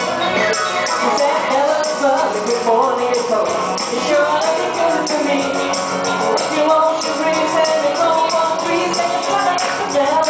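Live band music: voices singing over a steady beat with a tambourine jingling on each beat.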